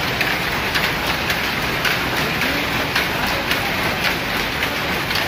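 Power loom running at speed: a dense, loud mechanical clatter with sharp clacks a few times a second.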